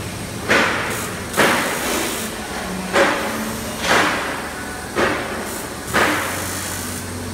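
Six heavy knocks about a second apart, each ringing briefly, over a steady low hum, while the steel frame of a rotating stage turns on its casters.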